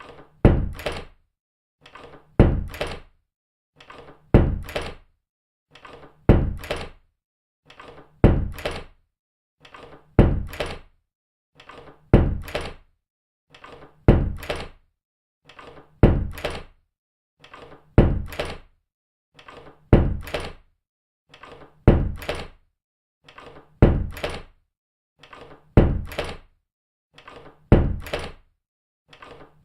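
A door closing shut, repeated about every two seconds. Each time a faint click comes first, then a loud thud that dies away quickly.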